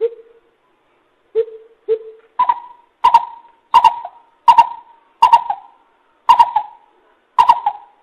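Greater coucal's deep hooting call series. Three lower hoots open it, then seven higher hoots follow about two-thirds of a second apart, each starting with a sharp click.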